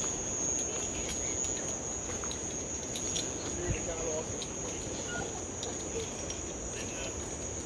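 Insects keeping up a steady, high-pitched drone, with faint voices in the background.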